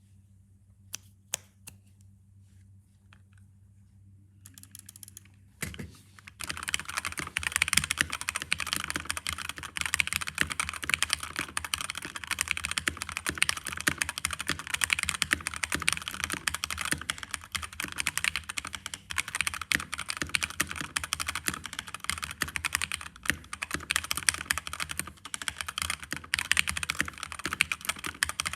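Stock HyperX Alloy Origins Core mechanical keyboard being typed on: a few separate key presses in the first seconds, then fast, continuous typing from about six seconds in.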